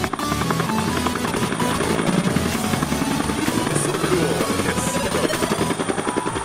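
Helicopter with a two-bladed main rotor hovering low over the water, the rotor beating in a fast, steady rhythm, its downwash blowing spray off the lake surface.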